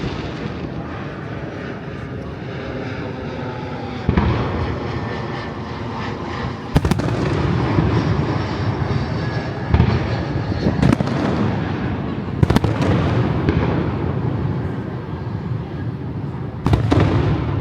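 Aerial fireworks display: about six sharp shell bursts go off a second or more apart, over a continuous rumble of further explosions and their echoes.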